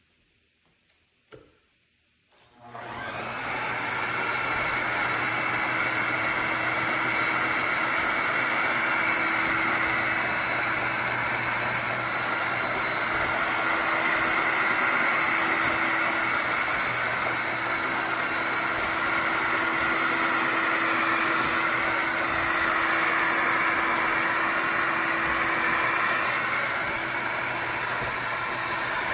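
Shark HydroVac MessMaster WD161 wet-dry vacuum-mop switching on after a short click, its motor spinning up about two and a half seconds in and then running steadily with a high whine and a low hum.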